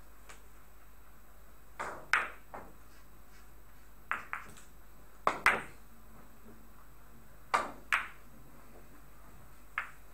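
A shot on a carom billiard table: the cue striking the cue ball, then the ivory-hard balls clicking against one another as they travel. About ten sharp clicks, mostly in close pairs a few seconds apart, with a single click near the end.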